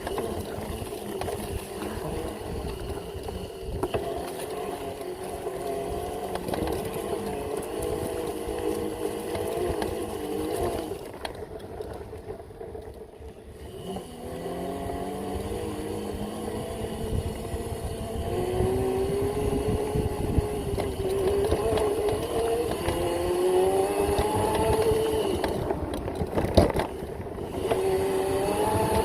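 Electric motor whine from an upgraded Razor MX650 pit bike (5000 W motor, 72 V battery) being ridden off-road; the pitch rises and falls with speed. About a third of the way in it eases off briefly, then winds back up. Wind rumbles on the microphone underneath.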